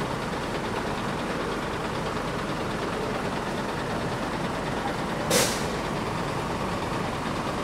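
Daewoo BH115 bus's diesel engine idling steadily, with a short loud hiss about five seconds in.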